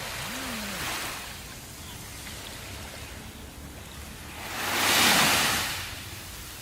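Sea waves washing onto a shore, with one larger wave breaking and rushing in loudly about five seconds in.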